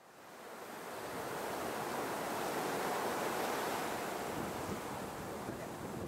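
Steady rushing wind ambience, fading in from silence over the first two seconds.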